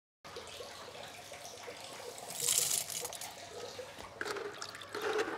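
Pieces of coconut-shell charcoal dropped and poured into a plastic barrel filter onto a mesh net, a brief rustling, clattering rush about two and a half seconds in over faint background.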